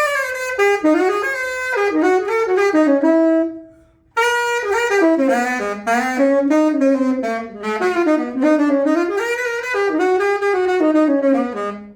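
Yamaha YTS-52 tenor saxophone played solo in a playtest after a fresh overhaul: a run of melodic phrases, one note at a time. There is a short breath pause about four seconds in. The last phrase winds down to a low held note near the end.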